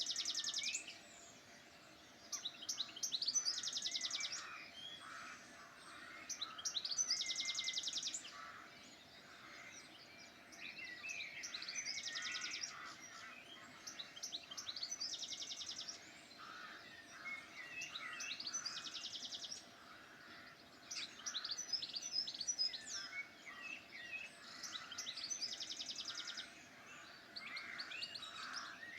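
Songbirds singing. One bird repeats a short song phrase about every four seconds, each phrase a quick string of varied notes ending in a fast trill, with other chirps between.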